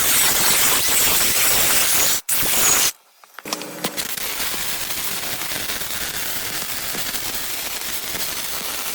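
Welding arc crackling and hissing while a hot pass is run over a pipe root weld. The arc breaks off about three seconds in and, after a short silence, starts again and crackles on steadily, a little quieter.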